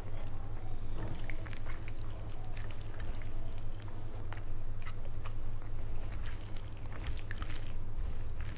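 Close-miked wet, sticky eating sounds: fingers mixing and squeezing biryani rice with curry, and chewing, heard as many small irregular smacks and clicks over a steady low hum.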